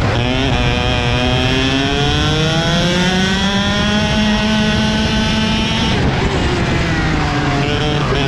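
Two-stroke KZ shifter kart engine heard onboard, accelerating with its pitch climbing steadily for about six seconds, then dropping sharply and climbing again near the end. Other karts' engines run close by.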